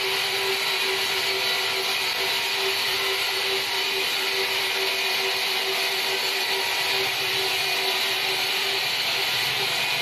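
Horizontal band sawmill running with its blade in a large log: a loud, steady, even noise with a constant hum, unchanging throughout.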